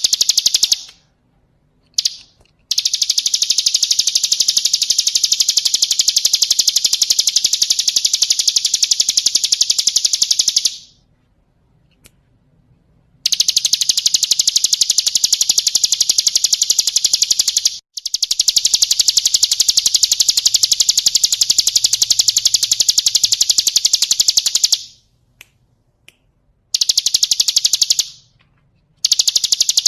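Hill prinia (ciblek gunung) singing long, very fast trills of high notes, several seconds each, broken by short pauses.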